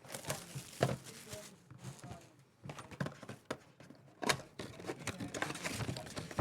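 A cardboard trading-card box and its plastic wrapping being handled and opened: scattered taps and knocks, then steadier crinkling and rustling from about four and a half seconds in.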